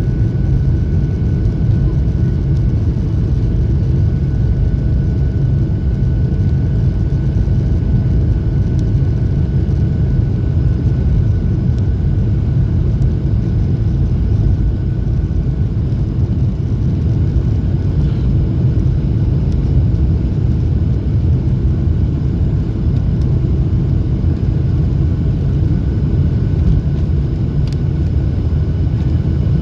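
Steady low roar of a Boeing 737-800's CFM56-7B engines and rushing air, heard inside the cabin during the climb after takeoff, with a faint steady whine above it.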